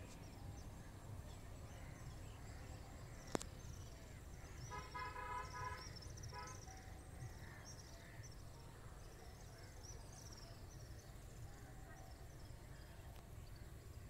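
Quiet riverside ambience at dusk: small birds chirping high and faint throughout over a low steady rumble. A distant vehicle horn sounds for about two seconds, starting around four and a half seconds in. A single sharp click comes a little after three seconds.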